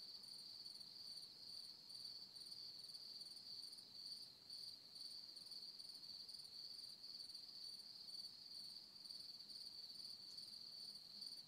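Faint, steady, high-pitched insect trill, as of crickets.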